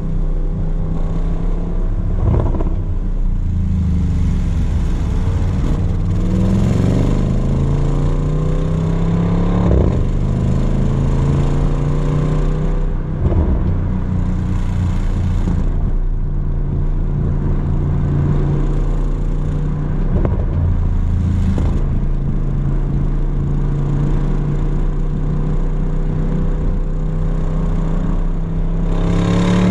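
Audi RS Q8's twin-turbo V8 exhaust, with its large resonator deleted, on the move. The note climbs in pitch under acceleration, falls back sharply about ten seconds in, and later holds a steady drone, with a few short sharp breaks along the way and a louder one at the very end.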